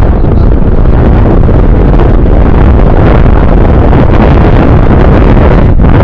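Strong wind buffeting the microphone: a loud, steady rumbling rush, heaviest in the low end, with a brief dip near the end.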